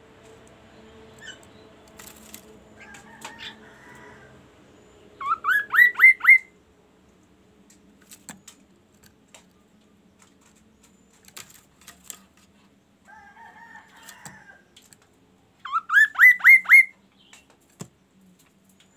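Caged songbird singing: two loud phrases of about five quick whistles, each sweeping upward, about five seconds in and again near sixteen seconds, with softer chattering before each phrase and a few scattered clicks.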